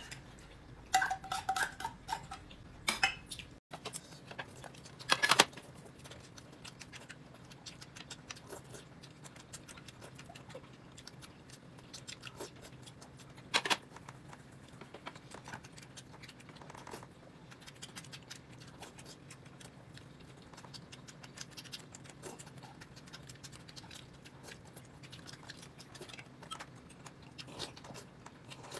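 Chopsticks and bowls clinking during a meal: a few sharp clinks in the first seconds and one about halfway through, then quiet small ticks and taps.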